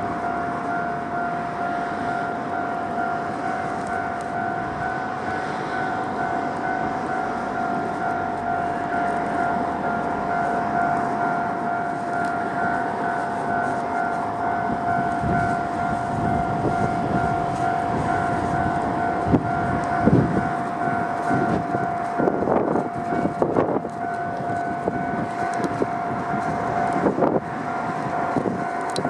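Japanese level-crossing electronic warning bell ringing continuously in its normal tone, a rapidly repeating two-note ding, while a Kantō Railway KiHa 5000 series diesel railcar passes through the crossing. Several sharp wheel clacks over rail joints come in the second half.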